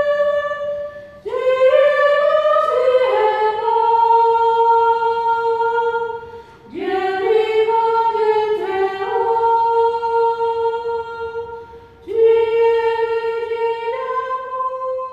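Unaccompanied singing voices in a slow melody of three long phrases, each sliding up onto long held notes.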